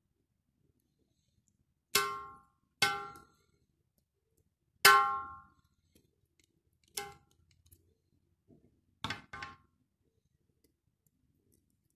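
A metal spoon clanging against a hard dish while spreading yogurt, six sharp ringing knocks, the loudest about halfway through and the last two in quick succession.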